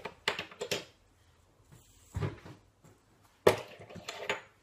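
Several short, sharp clicks and knocks of fidget spinners being handled, one of them a metal spinner. The loudest click comes about three and a half seconds in.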